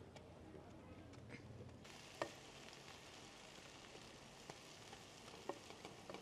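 Faint sizzling of chopped herbs frying in oil in a pan over a wood fire, with a few sharp crackling clicks, the loudest about two seconds in.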